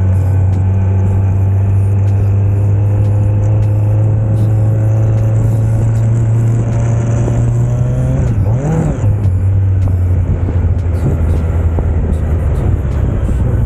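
Vehicle engine running under way, its pitch climbing slowly, then dipping and rising again about eight seconds in.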